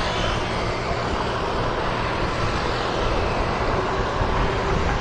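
Steady traffic and road noise heard from a moving bicycle, with wind rumbling on the microphone.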